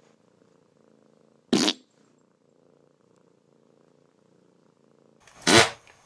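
A domestic cat purring softly and steadily. Two short, loud, rough bursts of noise break in, one about a second and a half in and a louder one near the end.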